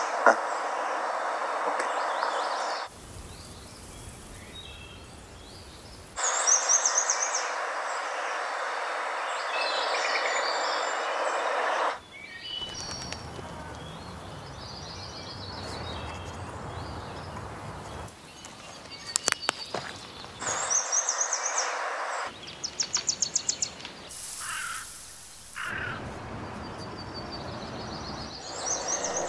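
Woodland birdsong: high chirps and trills over a steady background hiss, in short segments that change abruptly from one to the next. There is a quick cluster of sharp clicks about two-thirds of the way through and a rapid run of repeated calls near the end.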